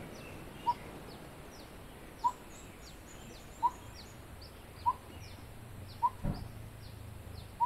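A bird repeats a single short, clear note about every second and a half, six times, over fainter high chirps. There is a soft thump just after six seconds in.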